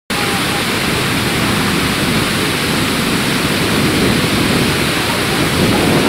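A large waterfall, a heavy column of water plunging down a cliff, giving a loud, steady rushing noise that starts abruptly and holds even throughout.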